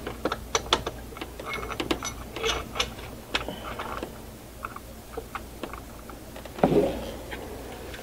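Irregular metallic clicks and taps of starter bolts being threaded by hand into a replacement starter motor and the starter being shifted into place, over a steady low hum.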